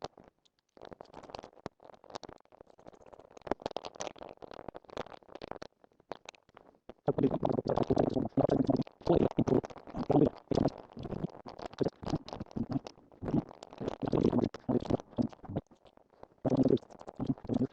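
Clicking, scraping and rattling of a bike saddle clamp, bracket and bolts being handled and fitted onto a new saddle's rails. It gets louder and busier about seven seconds in.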